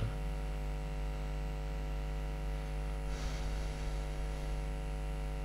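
Steady electrical mains hum with many evenly spaced overtones, picked up by the recording, with a soft breath about three seconds in.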